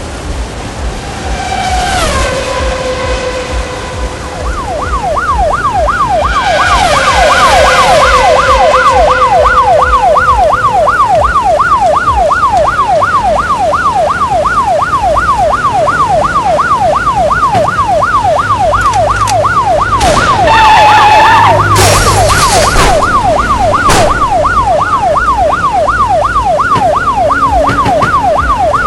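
Emergency vehicle siren in a fast yelp, its pitch sweeping up and down about two and a half times a second, after some falling tones near the start. About twenty seconds in, a short, loud, steady-pitched blast like a horn sounds over it.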